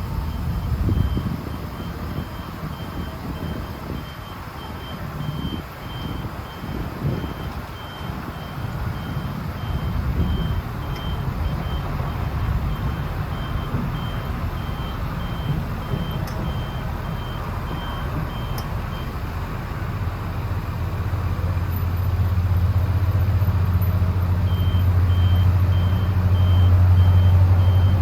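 A backup alarm beeping in a steady rapid rhythm over a diesel engine running. The beeping stops for a few seconds after about two thirds of the way in while the engine settles into a louder, steady drone, then the beeping resumes near the end.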